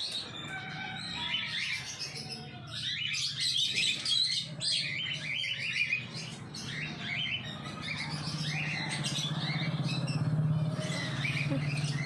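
Rose-ringed (ring-necked) parakeet chirping in many short, shrill, quick notes. A steady low hum comes in about halfway through and grows louder toward the end.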